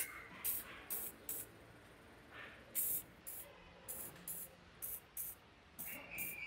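Aerosol can of WD-40-type penetrating oil sprayed in about a dozen short, sharp hisses, coming in twos and threes with brief pauses between. A faint high call sounds near the end.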